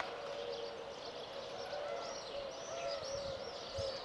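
Birds chirping in many short, repeated calls over a faint steady background noise.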